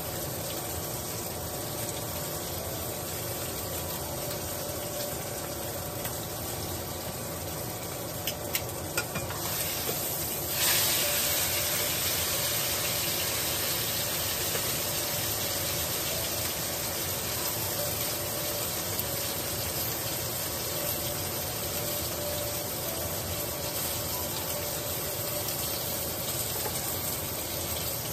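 Ribeye steak sizzling in a hot pan, a steady hiss. A few light clicks come about eight to nine seconds in, and at about ten seconds the sizzle suddenly grows louder and stays louder.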